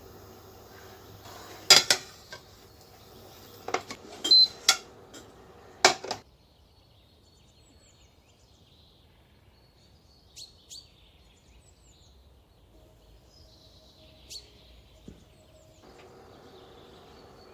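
Several sharp clacks of hard objects knocking together in the first six seconds, then only a few faint ticks.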